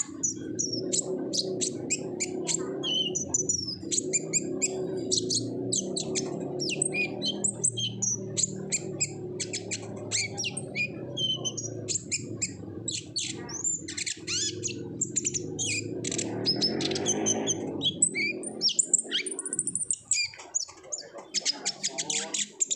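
Kolibri ninja (a sunbird) singing busily: a fast, unbroken stream of high chirps and twittering trills. A steady low hum runs underneath and stops about three-quarters of the way through.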